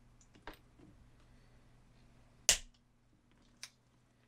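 Flush cutters snipping small plastic pieces off a servo pan/tilt bracket: one sharp snap about two and a half seconds in, with fainter clicks before and after it.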